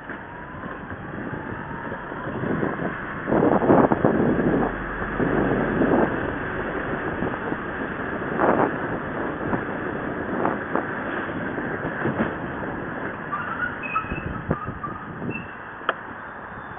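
Scooter riding along a town road: a steady rumble of motion and road noise with wind on the microphone, rising in several louder rough surges a few seconds in.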